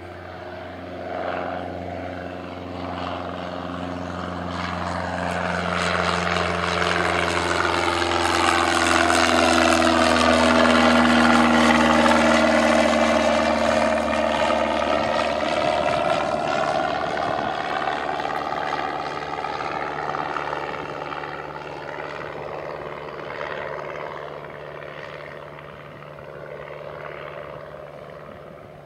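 Cessna 172 Skyhawk's piston engine and propeller climbing out after takeoff and passing the listener. The sound builds to its loudest about halfway through, drops in pitch as the plane goes by, then fades as it flies away.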